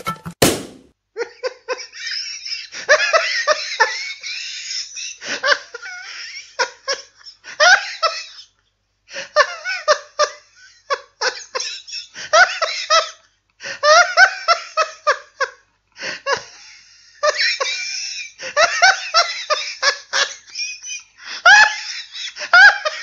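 A balloon bursts with a single sharp bang, then laughter follows in repeated bursts with short breaks.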